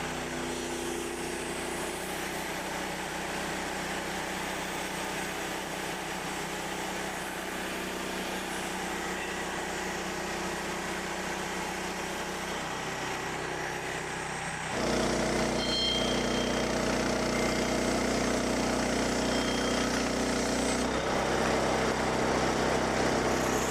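Small gasoline engine of a portable band sawmill running steadily. About 15 seconds in it gets louder and deeper and stays that way.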